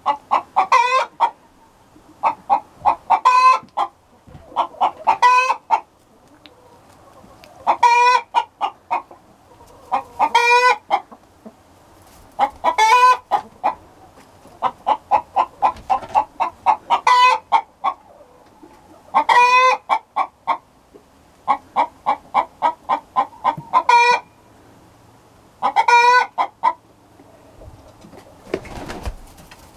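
Hens cackling loudly: bout after bout of quick short clucks, each rising into a longer drawn-out call, repeating about every two seconds. Near the end the calling stops and there is a soft rustle.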